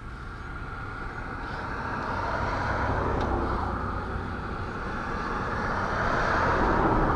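A road vehicle approaching, its rushing tyre and engine noise growing steadily louder.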